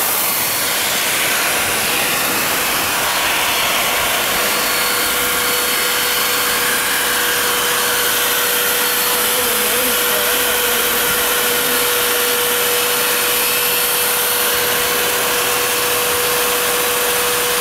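Electric air blower running steadily, pushing air through a corrugated hose into a PVC blimp to inflate it. A steady hum-like tone joins the whoosh about five seconds in.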